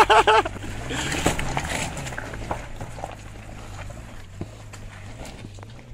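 Suzuki Jimny 4x4 driving past on a stony, muddy lane, its engine running and its tyres crunching over stones, loudest about a second in and fading as it pulls away. A brief whoop of a voice at the very start.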